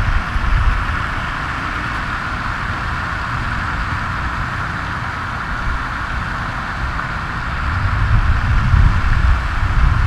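Steady outdoor background noise: a low, gusting rumble under an even hiss, growing louder near the end.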